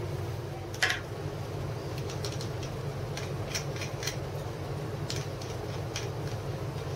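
Small metal parts clinking: one sharp ringing clink about a second in, then scattered light clicks as the opened gear head of an angle grinder is handled, over a steady low hum.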